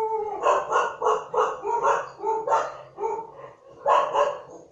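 A dog barking over and over, about ten short barks in a steady series.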